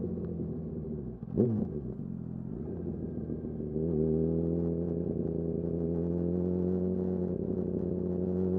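2008 Yamaha R1's inline-four engine running under way, with a short sharp blip about a second and a half in. From about four seconds in the engine note steps up and holds steady, rising slightly near the end.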